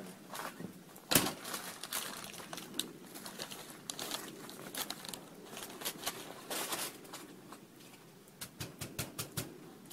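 A door shuts with a thud about a second in. Scattered crunching and clicks follow, then near the end a quick run of about six sharp knocks on the front storm door.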